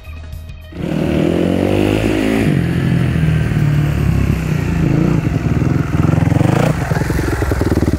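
Motocross bike engine starts up loud about a second in and revs up and down as the bike rides across the dirt. Near the end it settles into a steady, even idle as the bike comes to a stop.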